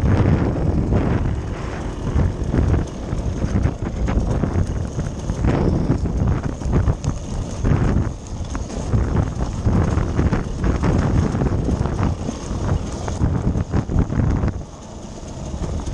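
Wind buffeting the microphone, with a steady run of irregular knocks and rattles.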